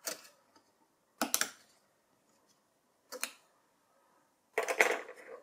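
Clicks of two DDR4 SODIMM memory modules being released from their spring-loaded slot latches and pulled out. There are three separate sharp clicks about a second or two apart, then a short flurry of clicks near the end.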